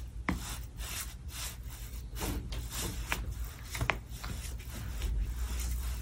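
Bare feet pressing and shifting on a person's back through a cotton T-shirt: soft rubbing and rustling of the fabric, with three brief sharp clicks, one just after the start, one about three seconds in and one near four seconds.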